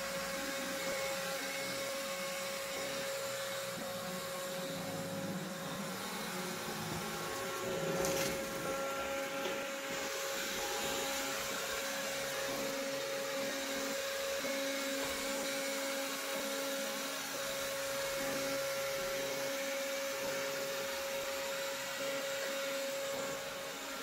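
Roborock S6 robot vacuum running, a steady whirr of its suction fan and brushes with a steady whine over it. A brief knock sounds about eight seconds in.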